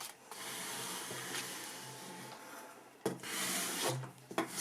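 Rubbing and scraping as a ruler is drawn across a diamond-painting canvas to smooth it flat, steady and then louder for about a second near the end.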